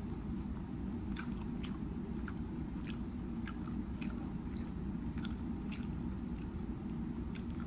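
Close-miked chewing of a chicken wing, with short wet mouth clicks a little under twice a second over a steady low background hum.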